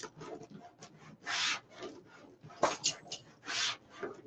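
Scratchy rustling and rubbing of deco mesh and burlap being handled and pulled by hand, in three half-second bursts about two seconds apart, with small clicks and one sharper tap in between.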